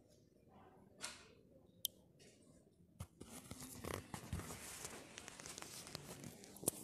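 Handling noise of a phone being carried and moved, its microphone rubbed and covered: a sharp click or two, then from about three seconds in a dense rustling and scraping with small clicks, and a sharp click near the end.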